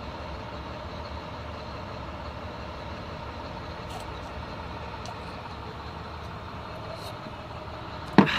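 Steady low rumble of an idling truck engine, even throughout. A single sharp knock near the end.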